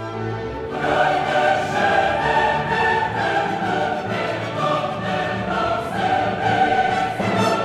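Classical choral music: a choir singing with an orchestra, swelling up within the first second and then sung at full voice.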